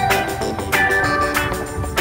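Background music: an instrumental track with a steady beat and bright melodic notes.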